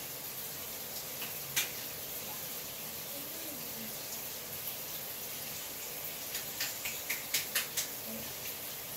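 Steady hiss with soft, sharp clicks from hands working gel through wet hair and twisting strands around the fingers: one click a little after a second in, then a quick run of them near the end.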